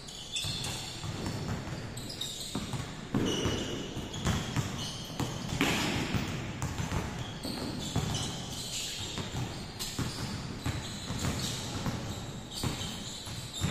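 Several basketballs bouncing on an indoor hardwood court, in irregular overlapping knocks, echoing in a large gymnasium.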